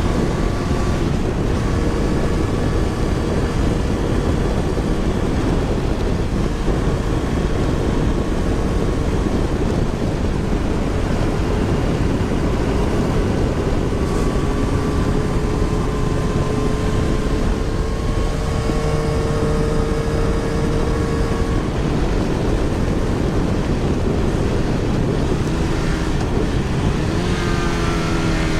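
Motorcycle engine running at road speed, heard through a helmet-mounted microphone with heavy wind rush over it. Near the end the engine pitch rises as it speeds up.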